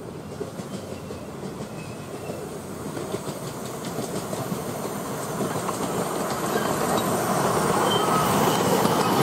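10¼-inch gauge miniature steam train running along the track toward the listener, growing steadily louder as it approaches, with faint clicking from the wheels and a few brief high squeals near the end.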